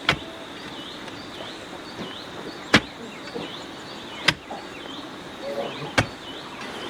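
Sharp single knocks, one about every one and a half seconds, with a high chirp repeating about every two-thirds of a second behind them.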